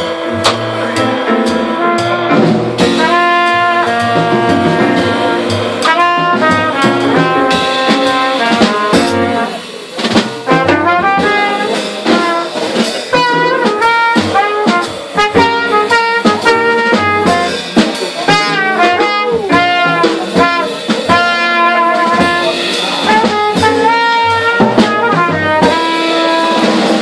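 Live small-group jazz: a cornet plays a melodic line over piano, upright bass and drum kit with cymbals.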